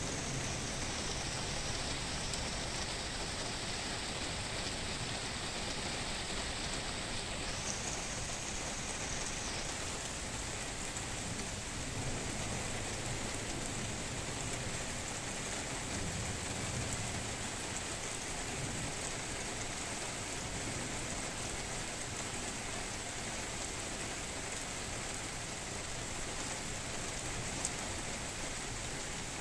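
Steady rain falling hard during a thunderstorm, with a faint low rumble about midway.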